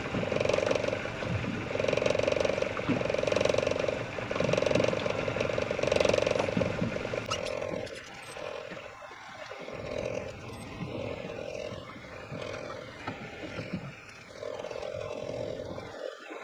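Fishing reel being wound in short spurts of about a second each, a mechanical whirr while a hooked fish is reeled in; the winding gets fainter about halfway through.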